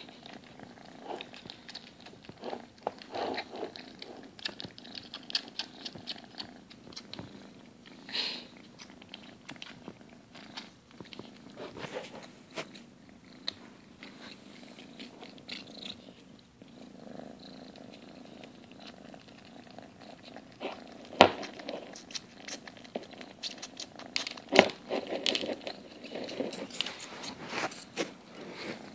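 Domestic cat purring steadily while eating from a glass bowl, with scattered crunching and small clicks of feeding. Two louder sharp clicks stand out in the second half.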